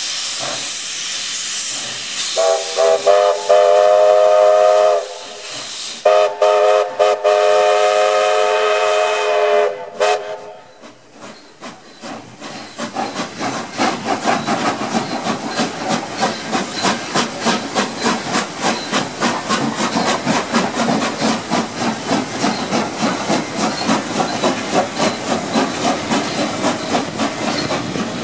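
Steam locomotive whistle sounding two long blasts with several tones at once, over a hiss of escaping steam. Then the locomotive exhaust starts up and settles into steady chuffing at about two beats a second as the engines get under way.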